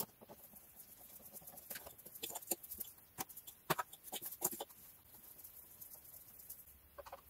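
Faint, irregular clicks and light knocks of plastic engine-bay parts being handled by hand as mass airflow sensors are worked loose and pulled from the intake pipe.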